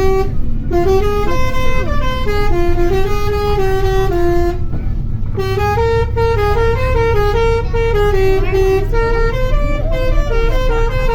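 Bus 'telolet' musical horn playing a tune of short stepped notes, with a break of about a second midway, over the steady low rumble of the bus engine.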